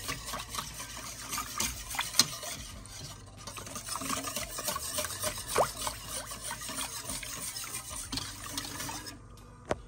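A spoon stirring a milk mixture in a pot, with liquid sloshing and light clinks of the spoon against the pot, one of them sharper about two seconds in.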